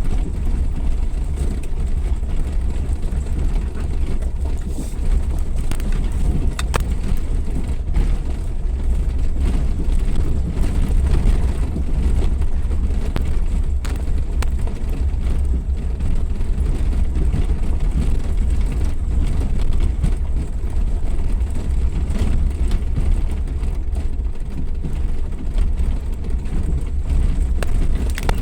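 Suzuki Jimny 4x4 driving off-road: a steady low rumble of engine and running gear, with a few light knocks over the rough ground.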